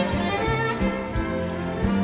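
Swing jazz recording led by violin over a rhythm section, with a bass line and a steady beat of about three strokes a second.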